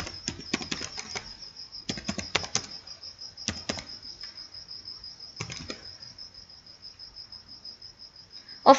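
Computer keyboard keys clicking in short bursts as a phrase is typed, stopping about six seconds in. A steady high pulsing trill runs underneath throughout.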